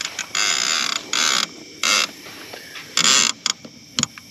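Conventional fishing reel's line-out clicker ratcheting in several bursts of up to about a second, the sign of a fish biting and pulling line off the spool.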